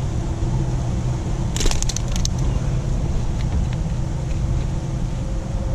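Wind buffeting the microphone over a steady low hum, with a quick run of clicks and taps about a second and a half in.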